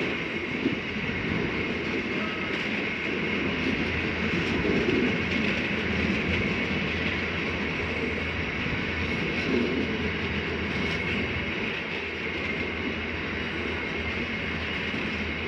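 Drax biomass hopper wagons rolling past, a steady rumble and clatter of their wheels on the rails, with a thin steady high ring.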